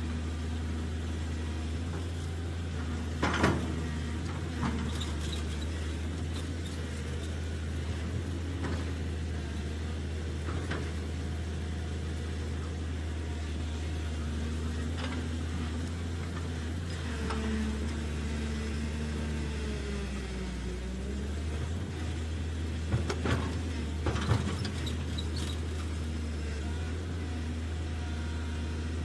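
Remote-control toy excavator working: a steady low engine-like hum with a whine that glides up and down in pitch partway through. A few sharp clicks and knocks come about three seconds in and again later on, as it digs and loads sand.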